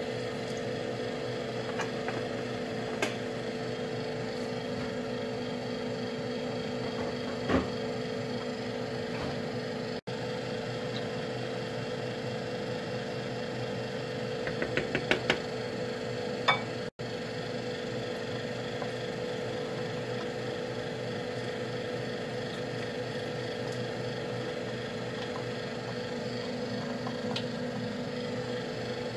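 Steady electrical hum from a running kitchen appliance such as a fan. A few light clicks sound over it, with a quick run of taps about halfway through as a wooden spoon stirs the stew in a metal pot.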